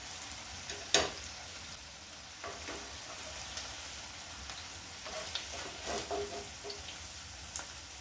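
Rice-and-potato tikkis shallow-frying in oil in a pan, the oil sizzling steadily. A spoon clinks sharply against the pan about a second in, with a few lighter taps later as the tikkis are lifted out.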